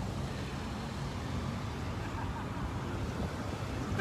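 Steady low rumble of a line of cars and trucks, engines running in slow-moving traffic.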